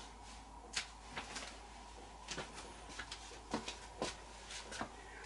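Faint, irregular clicks and knocks, about a dozen over five seconds, from a person moving into place in front of the camera.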